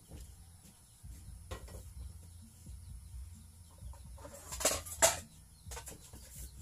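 Chicken simmering in soy sauce and water in a wok: a low steady rumble with faint bubbling. About four and a half seconds in come two loud metal clanks about half a second apart, from cookware being handled.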